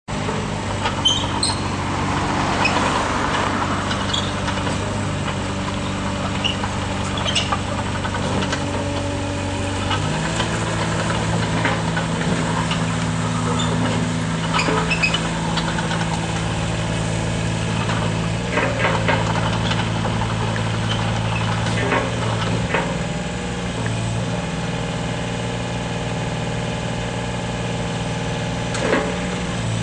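Volvo EC25 mini excavator's diesel engine running steadily, its pitch stepping up about a third of the way in and holding as the machine works, with occasional short clicks and knocks.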